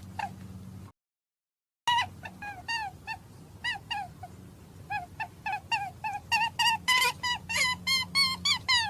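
A series of short, high-pitched squeaking calls from a small animal, each bending in pitch, repeating a few times a second and coming faster toward the end. The sound cuts out completely for about a second shortly after the start.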